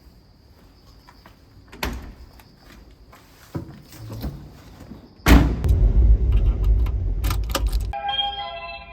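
A few clicks and knocks, like a vehicle door and keys being handled, then about five seconds in a sudden loud, low rumble as the VW Type 2 bus's air-cooled flat-four engine starts and runs; near the end a steady multi-tone sound comes in over it.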